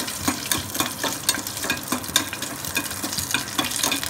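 Metal slotted spoon stirring whole spices in hot ghee and oil inside a small aluminium pressure cooker: repeated clicks and scrapes of the spoon against the pot over steady sizzling as the spices are sautéed.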